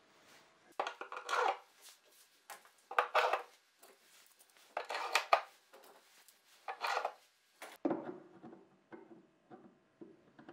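Steel bar clamps with plastic handles being hung one after another on a plywood rack: a short clatter of metal and plastic knocking against wood about every two seconds, then a lower, busier rattle near the end.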